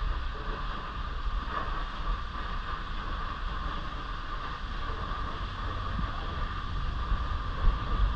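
Tour boat's engine running steadily, with wind buffeting the microphone.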